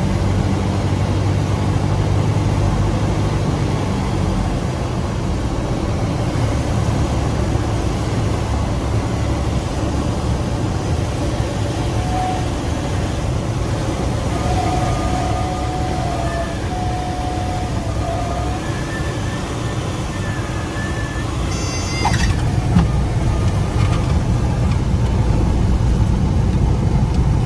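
Cabin sound of a Cessna 172 landing: the four-cylinder engine throttled back to a low drone with propeller and wind noise, and a thin wavering tone, the stall warning horn, coming and going through the flare. Late on, a sharp tyre chirp marks the touchdown, followed by a louder steady rumble of the wheels rolling out on the runway.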